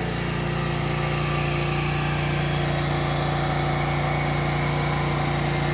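A small engine or motor running steadily at constant speed, giving an even, unchanging hum.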